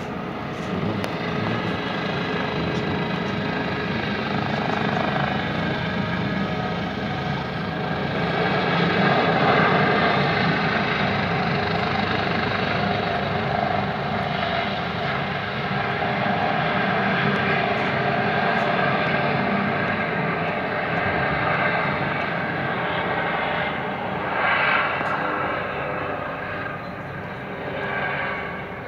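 Air ambulance helicopter flying low overhead: a steady rotor and turbine noise that grows loudest about ten seconds in, then eases off a little near the end as it moves away.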